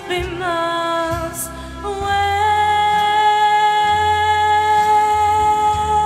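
Female solo vocalist singing a slow ballad over instrumental accompaniment, moving through a short phrase and then holding one long high note from about two seconds in.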